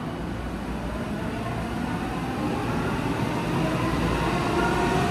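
Electric commuter trains standing at a station platform: a steady rumble and hum that grows louder, with a faint whine slowly rising in pitch in the second half.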